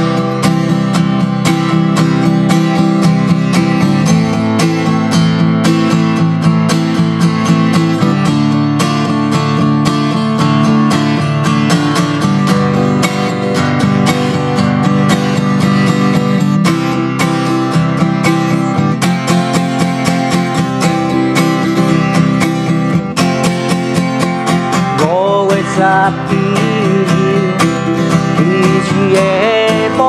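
Steel-string acoustic guitar strummed and picked in a steady song introduction. A man's singing voice comes in near the end.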